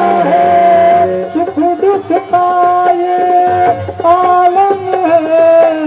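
Indian song playing, with a singer holding long, gliding notes over an instrumental accompaniment.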